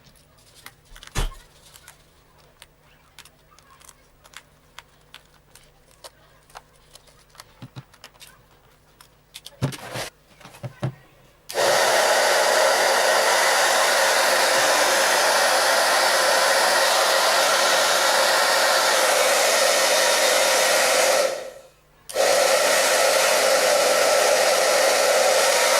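Faint clicks and handling knocks, then a repaired hand-held hair dryer switched on about halfway through, its motor and fan blowing with a steady rush. It cuts out for under a second and starts again near the end.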